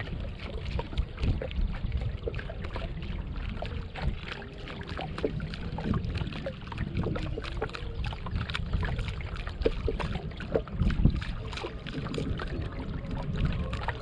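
Wooden rowing boat on the move: water lapping and splashing at the hull, with scattered knocks and creaks of the oar, over a steady low rumble.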